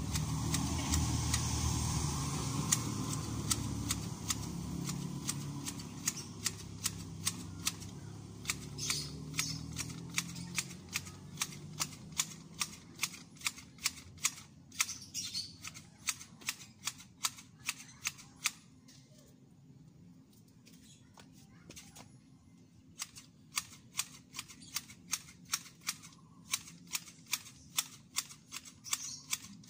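Hand grass shears snipping at a lawn edge, a sharp click about two or three times a second, stopping for a few seconds about two-thirds through and then starting again. A low rumble is loudest in the first few seconds and fades out.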